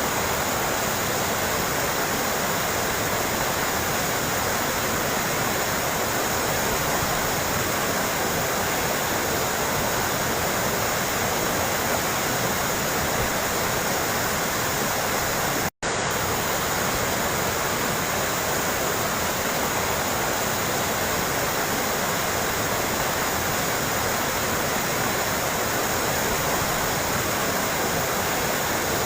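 Running water trickling and splashing in a steady, dense rush, with a split-second gap of silence a little past halfway.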